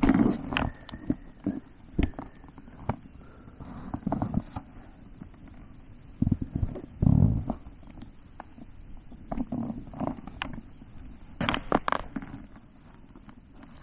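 Wind buffeting a camera microphone: irregular low rumbles, with scattered short knocks and clicks.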